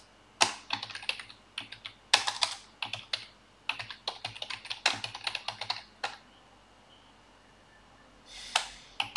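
Typing on a computer keyboard in quick runs of keystrokes for about six seconds, then a pause of about two seconds before a few more keystrokes near the end.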